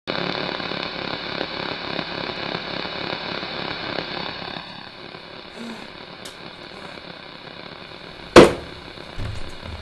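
A steady background hiss that drops in level about halfway through, then a single sharp loud bang about eight seconds in.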